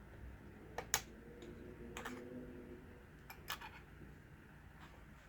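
Light, scattered clicks and taps of small plastic and metal laptop parts being handled, as RAM sticks are released from their slot clips; the sharpest click comes about a second in.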